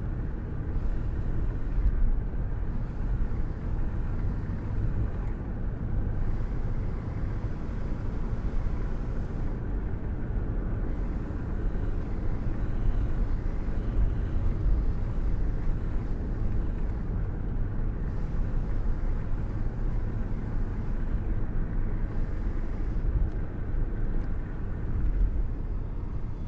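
Wind rushing and buffeting at the open window of a cruising car, with a hand held out in the airstream, over a steady low rumble of road noise.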